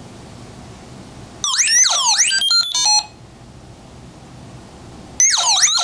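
Arduino Uno playing R2-D2-style robot chirps as square-wave tones through a small 8-ohm toy speaker: two bursts of fast whistling glides up and down, each ending in a quick run of stepped beeps. The first burst comes about a second and a half in, the second about five seconds in.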